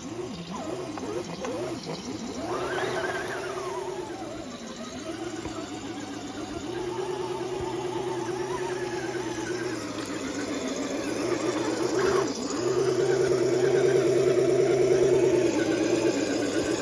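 A 1/10-scale RC crawler truck's electric motor and gears whining as it crawls through mud. The pitch rises and falls with the throttle, with a quick rev about three seconds in and a louder steady run over the last few seconds.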